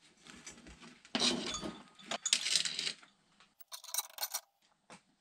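Metal parts of a Suzuki GS500 engine being handled on an engine stand: the aluminium crankcase scraping and knocking as it is moved, then a quick cluster of light metallic clinks a little past the middle.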